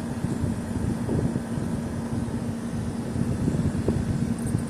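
Steady hum of running machinery: one constant low tone over a dense low rumble.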